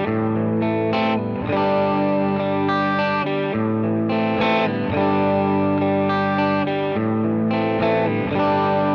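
Electric guitar played through a Valeton GP-200 multi-effects processor, ringing out sustained chords and notes with a processed, effects-laden tone, changing chord every second or two.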